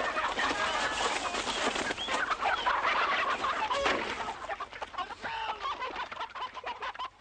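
A flock of chickens squawking and clucking in alarm, several birds at once, with wings flapping as a bird flies up.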